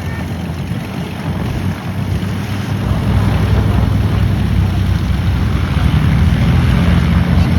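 Propeller aircraft engine running, growing louder about three seconds in, with wind buffeting the microphone.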